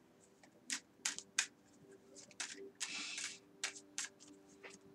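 Tarot cards being handled: a scattering of faint, sharp clicks and snaps, with a short rustle about three seconds in.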